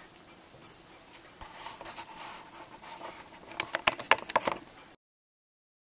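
Rustling and handling noise on a tabletop, ending in a quick run of sharp clicks and knocks about four seconds in, then the sound cuts off.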